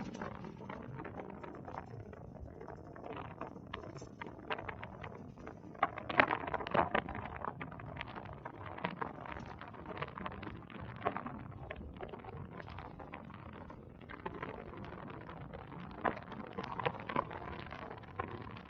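Rumbling travel noise from a moving vehicle, with frequent short knocks and rattles throughout.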